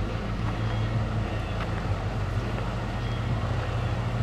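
A steady low hum with a few held tones, under an even wash of outdoor noise.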